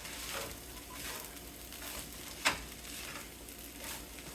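Fried rice sizzling in a frying pan while being stirred, with scraping and one sharp knock about two and a half seconds in.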